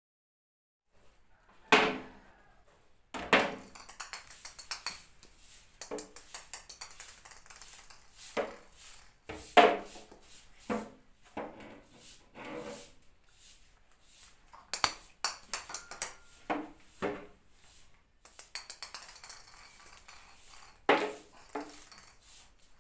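A hollow plastic toy bat knocking and clattering on a tiled floor: irregular sharp hits, a few loud ones among quieter taps, starting after a second or two of silence.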